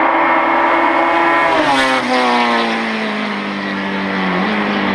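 A rally car's engine passing at speed. It holds a steady high pitch, then drops sharply about two seconds in and keeps falling as the car draws away.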